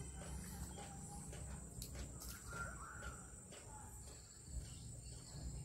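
Outdoor ambience: a steady high-pitched insect drone, over a low rumble, with a couple of faint knocks about two seconds in.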